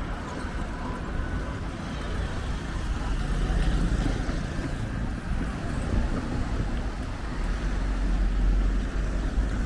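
Heavy diesel trucks and other road traffic passing close by, a low engine rumble that swells about three seconds in and again near the end.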